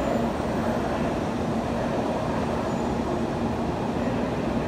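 Steady hum of a Shinkansen bullet train standing at the platform, with a faint low steady tone in it.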